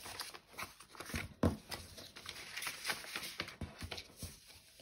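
Paper envelope with banknotes inside rustling and crinkling as it is pressed flat on a desk and its flap folded and tucked in, with a thump about a second and a half in.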